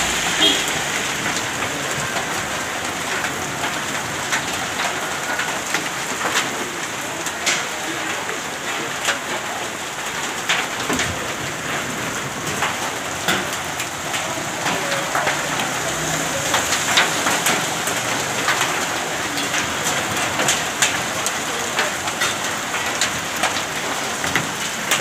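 Heavy downpour mixed with hail: a steady hiss of rain on the street, with many sharp ticks of hailstones and heavy drops striking hard surfaces.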